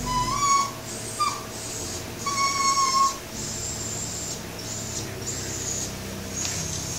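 Cavachon dog whining through a stuffed toy held in its mouth, as it tries to find a spot to bury the toy. Three high whines come in the first three seconds: a short one, a brief one about a second in, and a longer one held for most of a second.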